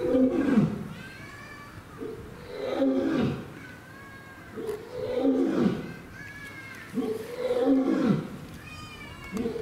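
Shiba goat bleating loudly, four times at even spacing of about two and a half seconds. Each bleat lasts about a second and drops in pitch at its end.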